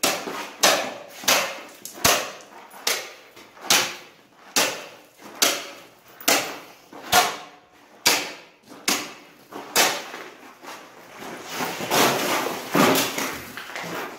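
Long-handled ice chipper chopping packed snow and ice on pavement: sharp strikes at an even pace, a little more than one a second, then a stretch of denser, rougher chopping and scraping near the end.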